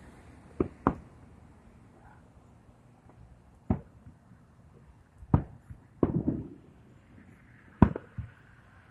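Fireworks exploding: sharp single bangs at irregular intervals. Two come close together near the start, then a quick run of bangs about six seconds in, then a last loud bang with a smaller one just after.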